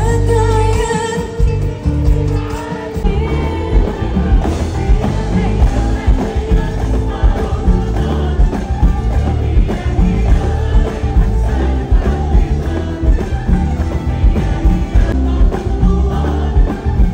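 Live band music with a heavy, steady beat and singing; a long held sung note opens it.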